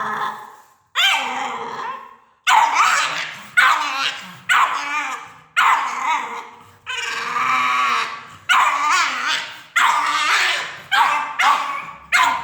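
Pit bull puppy barking over and over, about a dozen barks that come closer together near the end.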